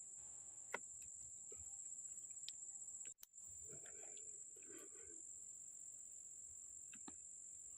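Steady, high-pitched insect drone, like crickets or cicadas, with a sharp click about a second in and a brief break about three seconds in.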